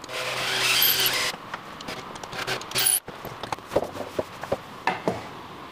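Cordless drill running for about a second as it drills into a wooden arm. It then stops, followed by scattered knocks and clicks of the drill being set down and the wooden pieces handled.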